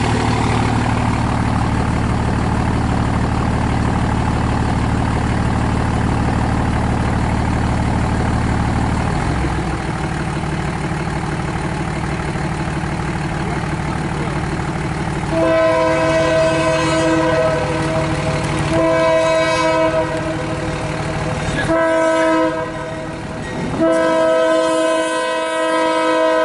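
Diesel locomotive's engine running loud and low as it comes up, easing off about nine seconds in. Its multi-chime air horn then blows the grade-crossing signal: two long blasts, a short one, and a final long blast, the standard warning for a road crossing ahead.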